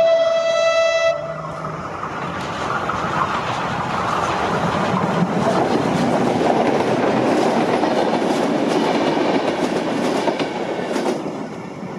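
Renfe UT-440 electric multiple unit sounding its horn, a steady tone that stops about a second in. The train then runs past close by, a steady rush of wheels on rails with many sharp clicks over the rail joints, easing off near the end.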